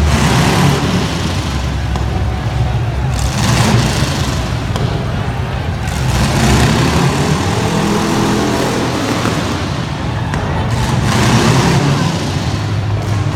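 Loud truck engine running and revving, its pitch rising and falling with surges of noise.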